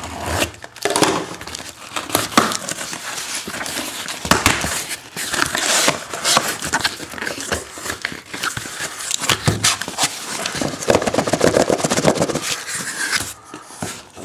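Cardboard inner case being opened by hand: packing tape torn and slit, and cardboard flaps scraping and rustling, with many small knocks and clicks as the box is handled.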